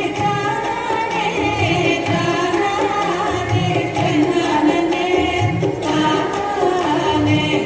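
A devotional song plays: a singer's voice carries the melody over a steady, regular hand-drum beat.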